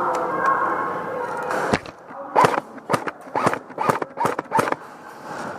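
Airsoft guns firing single shots: about ten sharp cracks at uneven spacing over roughly three seconds, starting a couple of seconds in.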